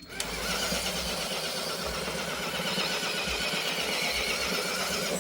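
Axial SCX10 III RC crawler's electric motor and gear drivetrain whining steadily under power, its pitch wavering slightly, as the truck drives through a tight turn with the dig function engaged; starts and stops abruptly.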